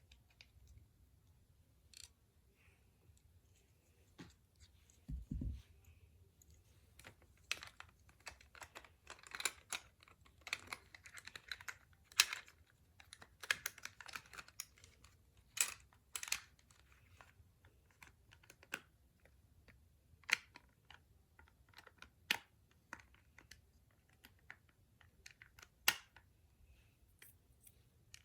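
Irregular small clicks, taps and light scrapes of plastic toy parts being handled and worked on by hand, with a low dull bump about five seconds in.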